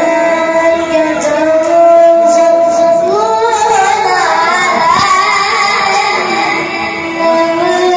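A boy's solo voice chanting an Islamic religious chant through a handheld microphone, in long held notes with wavering ornaments that climb in pitch around the middle.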